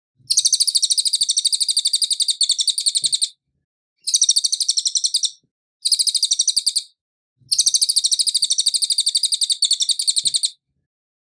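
Cililin songbird singing in four phrases of fast, high, rapidly repeated chattering notes. The two longer phrases last about three seconds and are separated by two shorter ones, with brief pauses between.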